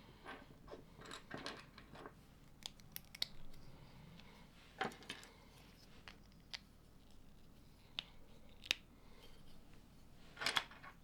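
LEGO plastic pieces being handled and pressed together: irregular small clicks and short rustles, with a sharper click every second or two.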